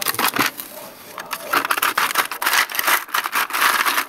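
A plastic freezer ice drawer pulled open, then a hand digging through the ice cubes, which clatter and scrape against each other and the bin in quick, irregular runs for most of the time.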